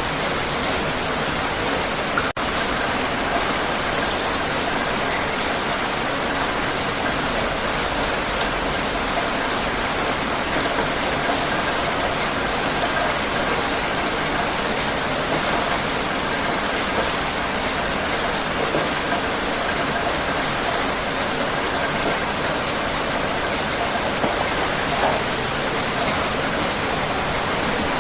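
Heavy rain falling steadily: an even, unbroken hiss of drops on surfaces, with one momentary dropout about two seconds in.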